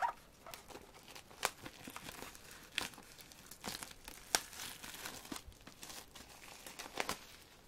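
Plastic shrink-wrap being peeled and torn off a CD album by hand, crinkling with irregular sharp crackles that die away near the end.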